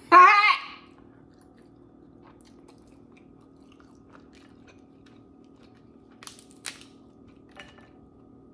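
A brief, loud wordless vocal sound at the start, then soft chewing clicks. About six seconds in come two sharp cracks of crab-leg shell being snapped apart by hand.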